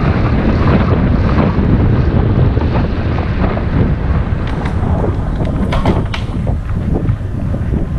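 Loud wind buffeting a camera microphone on a moving bicycle, a steady low rumble that eases slightly about halfway through, with a few short crackles in the second half.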